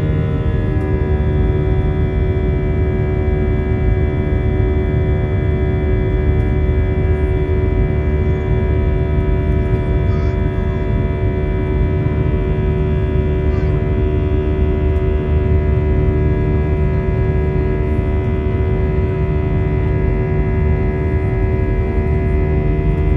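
Airbus A320 cabin noise in flight: a steady jet-engine drone with several steady humming tones layered over a low rumble, unchanging throughout.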